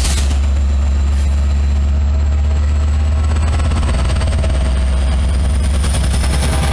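Amtrak EMD F59PHI diesel locomotive running, a loud steady low engine rumble with a faint high whine over it.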